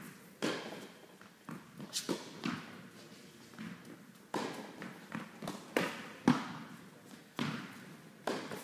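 Tennis rally on an indoor hard court: racket strikes on the ball and ball bounces, about ten sharp pops spaced half a second to a second apart, each echoing in the hall.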